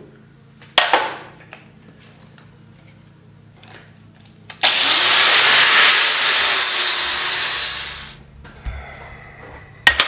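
A sharp metallic knock about a second in, then a power grinder running hard against steel tubing for about three and a half seconds and winding down, beveling a tube end to deburr it and prepare it for welding.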